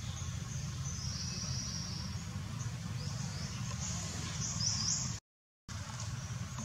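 Outdoor ambience: small birds chirping high and briefly, over a steady low rumble, with a short total dropout about five seconds in.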